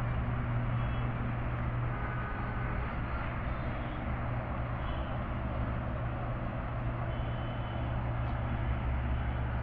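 Steady low drone of vehicle engine and road noise, with a constant hiss above it.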